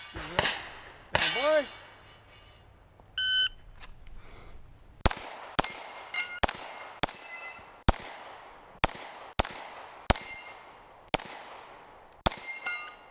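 Two loud clangs in the first second and a half, then a shot-timer start beep about three seconds in, followed by a string of about a dozen pistol shots, spaced about half a second to a second apart, with steel targets ringing as some of them are hit.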